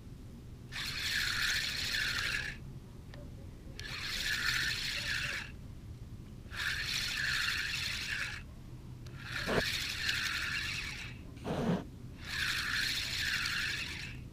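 Spinning reel on a feeder rod being wound in short spells about every three seconds, each spell a few turns of the handle with a whirring, rasping sound, as a hooked bream is reeled in.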